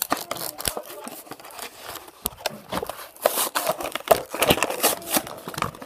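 A toy car's clear plastic blister pack and cardboard backing card being handled and pulled open by hand, crinkling and crackling in irregular bursts.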